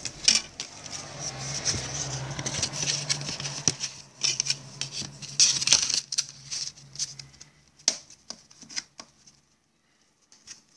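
Handling noise from VCD packaging: cardboard sleeves and a plastic disc case rustling, scraping and clicking, over a low steady hum that stops shortly before the end.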